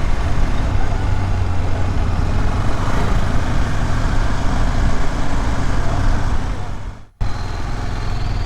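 KTM 250 Adventure motorcycle's single-cylinder engine running on the move, with steady wind and road noise. The sound drops out briefly about seven seconds in, then picks up again.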